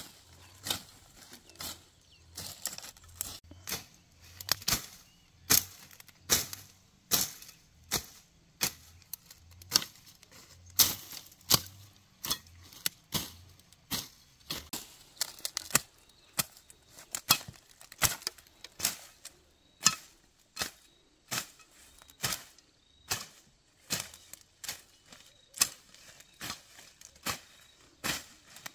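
A machete slashing through grass and weeds near the ground, in sharp, uneven cutting strokes about one or two a second.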